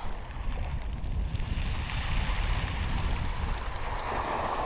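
Wind buffeting the camera microphone in a steady low rumble, over the hiss of small waves washing on a shingle beach, which swells near the end.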